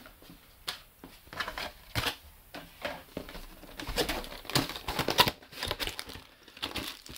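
Cardboard boxes and wrapped packaging being handled and shifted inside a cardboard carton: irregular rustling, scraping and light knocks, busiest about two seconds in and again from about four to five and a half seconds in.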